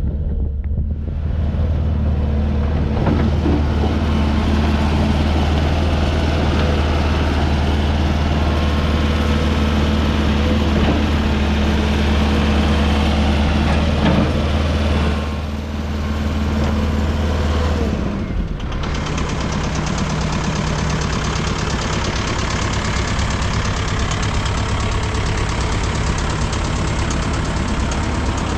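Bobcat S650 skid steer's diesel engine running steadily. About eighteen seconds in, its note drops and it settles at a lower, steady engine speed.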